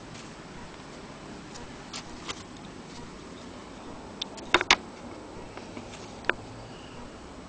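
A few short sharp clicks and taps, the loudest pair about halfway through, over a steady hiss with a faint high-pitched whine.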